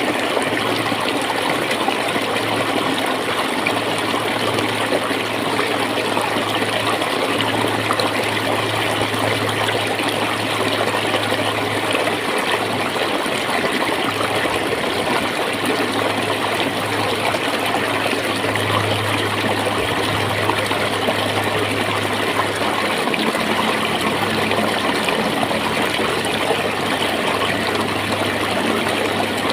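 Clear flowing water gurgling steadily, with a low hum underneath that swells and fades slightly.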